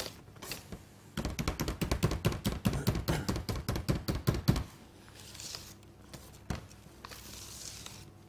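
Wire balloon whisk folding thick chocolate sponge batter in a stainless steel bowl, its wires clicking and knocking rapidly against the bowl for a few seconds, then turning softer and quieter about halfway through.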